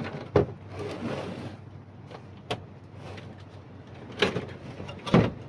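Plastic cabinet of a CRT television being slid back over the chassis and the set turned around: a scraping slide early on and several sharp knocks of the casing, the loudest about half a second in and near the end.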